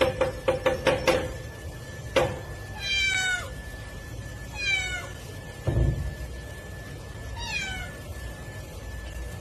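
Domestic cat meowing three times, each call falling in pitch. A fast run of taps fills the first second, with a single knock about two seconds in and a low thump near the middle.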